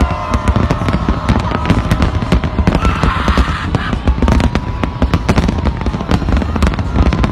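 Fireworks display: a rapid, unbroken barrage of aerial shells bursting and crackling, many bangs a second.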